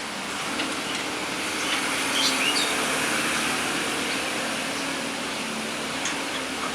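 Large Volvo hydraulic excavator's diesel engine running steadily while it digs, with a few short high chirps over it.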